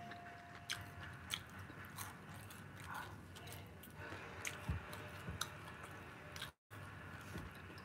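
Close-up mouth sounds of someone eating crispy fried chicken: irregular chewing with small crunches and wet clicks. The sound drops out for an instant about six and a half seconds in.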